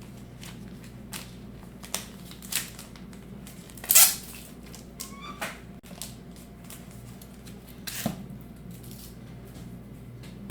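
A trading-card box and its packs being opened by hand: scattered crinkling and clicks of cardboard and wrapper, with one loud sharp rip about four seconds in and a short rising squeak just after it, over a steady low hum.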